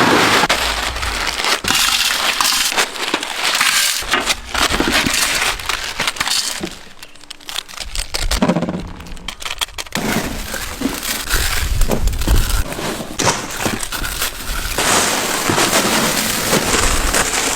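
Dry Maggi instant noodles being crushed and broken up, a continuous crackling and crinkling crunch that eases off briefly about seven seconds in.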